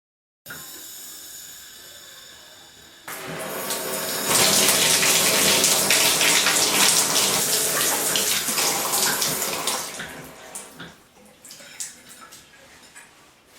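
Water spraying from a newly installed shower head into the tub. The flow steps up twice in the first few seconds, runs strongly, then dies away about ten seconds in as the water is turned off, leaving a few drips.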